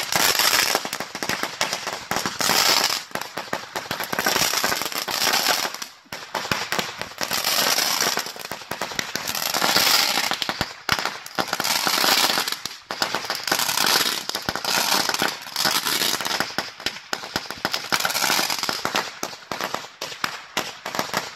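An 8,000-round string of Black Cat firecrackers going off in a continuous rapid crackle, swelling louder and easing off every couple of seconds, with a brief lull about six seconds in.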